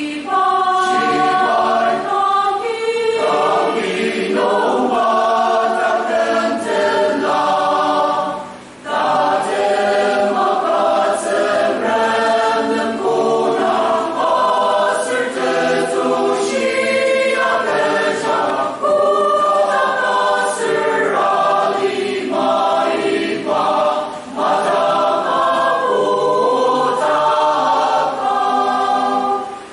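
Mixed choir of women's and men's voices singing in parts, several pitches sounding together. There is a short break between phrases about nine seconds in.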